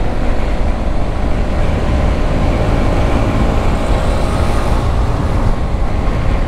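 KTM RC 390 motorcycle riding at road speed, its engine running steadily beneath heavy wind rumble on the microphone.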